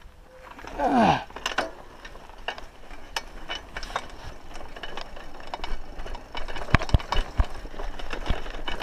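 Raleigh Ascent mountain bike rattling and clattering as it rolls over a stony dirt trail, with rapid irregular knocks and clicks. A brief sound falling in pitch comes about a second in.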